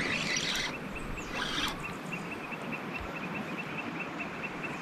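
An insect chirping steadily in a fast, even series of short high pips, over quiet outdoor hiss. A few brief rustling noises in the first couple of seconds.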